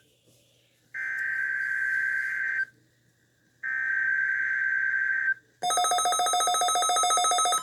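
NOAA Weather Radio SAME header: the second and third bursts of the shrill digital data tone that opens a Required Weekly Test, each about 1.7 seconds long with a short gap between. About two seconds later a rapidly pulsing electronic alert beep starts, from a weather radio receiver set off by the test signal.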